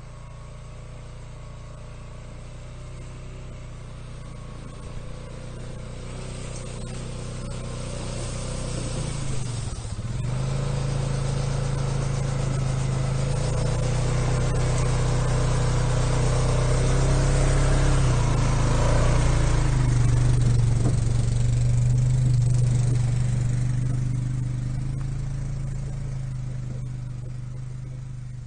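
4x4 ATV towing a log trailer through snow: its engine runs steadily, growing louder as it approaches and passes close by, then fading as it drives away near the end.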